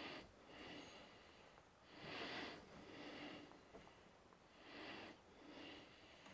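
Quiet, slow breathing close to the microphone: about three breaths, each in two soft parts, the stronger part carrying a faint high whistle.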